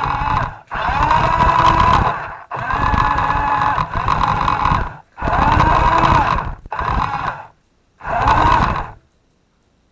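Toy RC truck's electric motor and gears whining as it drives across the floor in a series of throttle bursts, the pitch rising and falling with speed. The bursts are broken by short stops, and the last one cuts off about a second before the end.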